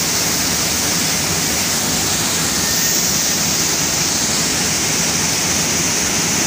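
Waterfall crashing into a rock plunge pool: a loud, steady rush of falling water.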